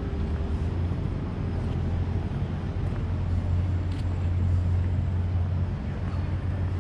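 A motor engine running with a low, steady drone that grows a little louder around the middle, heard over general outdoor hubbub.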